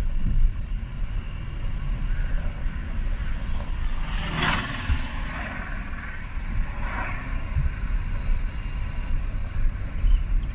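Car driving along a paved road, heard from inside the cabin: a steady low engine and tyre rumble, with a brief rushing sound about four seconds in.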